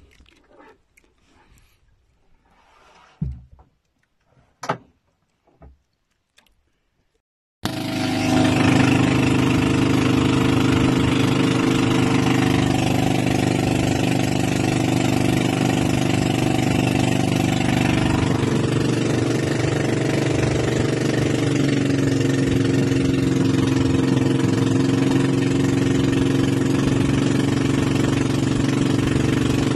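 A few scattered knocks, then about eight seconds in the small gasoline engine of a wooden fishing boat comes in abruptly and runs loud and steady under way.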